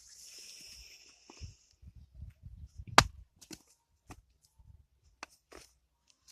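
An axe strikes firewood once, sharply, about three seconds in, followed by a few lighter knocks of wood. A short hiss comes before it, in the first second or so.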